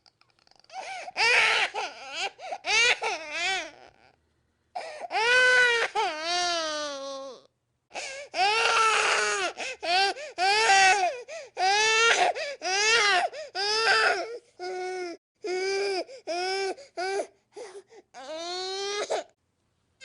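Baby crying: a run of pitched wails, each rising and falling, separated by brief gasping pauses, with shorter, quicker cries between about 14 and 18 seconds in and a longer wail near the end.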